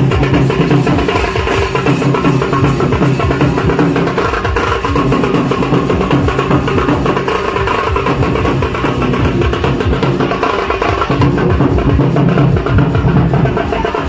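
Loud drum-driven music with dense, fast drumming and a low held tone in phrases of a couple of seconds.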